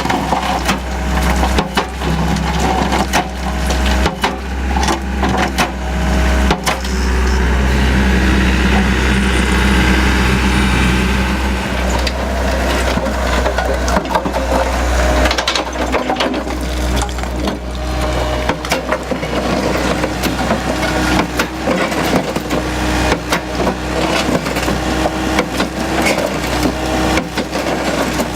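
Anross CB100 Crusha bucket on an 8-tonne Takeuchi TB175 excavator crushing concrete and sandstone: its hydraulically driven jaw cracks and grinds the rubble in a run of sharp, irregular cracks and knocks, over the steady running of the excavator's diesel engine.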